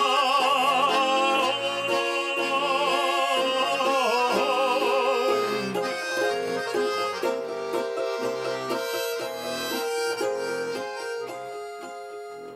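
A held sung note with wide vibrato over garmon accompaniment ends the verse. About five seconds in, the garmon (Russian button accordion) carries on alone in an instrumental interlude of melody and chords, growing quieter near the end.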